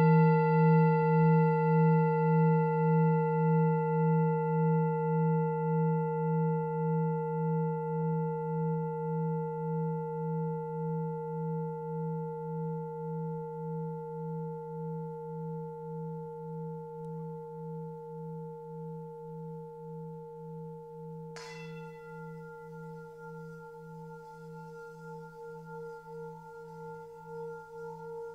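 A struck, bell-like tone rings out and slowly fades, pulsing with a steady slow wobble. About 21 seconds in a second strike adds a brighter ringing over the fading tone.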